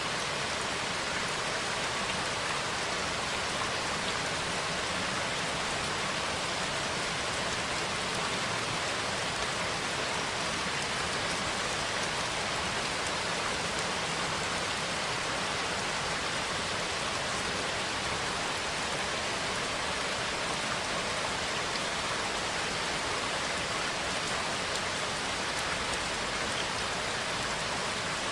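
Steady rain falling, an even, continuous hiss of drops with no thunderclap.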